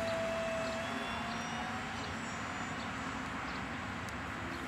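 Radio-controlled Extra 330L model plane's motor droning high overhead, a steady whine that slides slightly lower and fades out about two seconds in, under a steady hiss.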